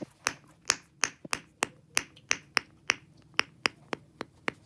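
Plastic fidget toy clicked or popped over and over in a quick, even rhythm, about four sharp pops a second.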